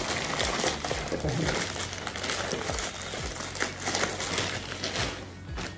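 Plastic parcel packaging crinkling and rustling as it is handled and opened by hand, over background music.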